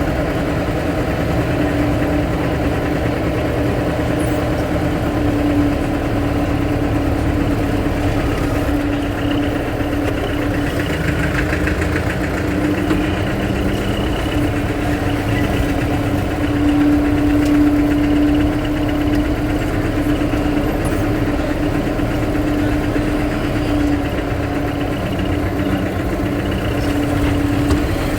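Motor vehicle engine running at a constant speed, a steady low rumble with a constant hum.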